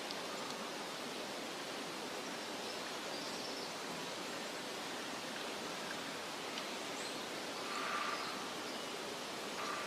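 Forest ambience: a steady rushing noise with faint, scattered bird chirps, and a somewhat louder, lower bird call about eight seconds in.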